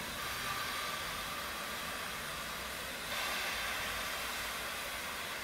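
Baldwin-built SNCF 141 R 'Mikado' steam locomotive standing with steam hissing steadily; the hiss grows louder about three seconds in.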